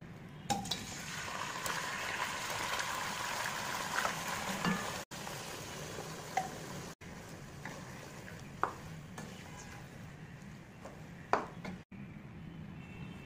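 Raw chicken pieces sizzling in hot oil in a pot, loudest for the first few seconds and then settling to a quieter frying hiss. A few sharp clinks of utensils against the pot come through it.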